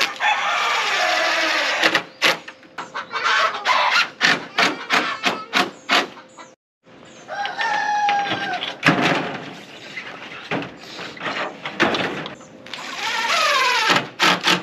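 Cordless drill driving screws in several short bursts, with sharp knocks and clatter in between. A rooster crows once, about halfway through.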